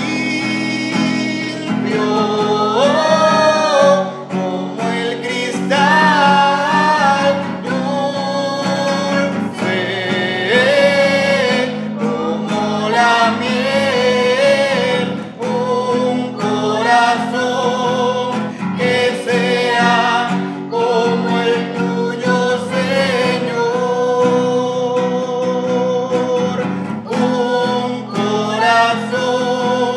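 A church hymn sung by a voice over guitar accompaniment, the melody gliding and changing notes over steady chords.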